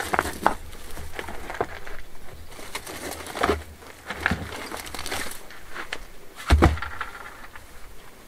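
Large stones being moved and set down on rocky, gravelly ground: a series of knocks and scrapes of stone on stone, with one heavy thud about six and a half seconds in.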